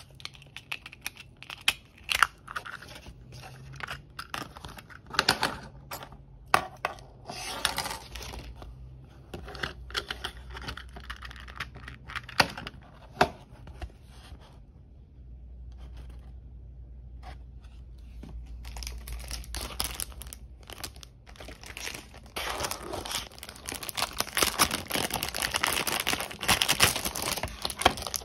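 Plastic and card packaging being handled and opened: crinkling and tearing of plastic with sharp clicks and taps. The crinkling grows dense and louder over the last few seconds.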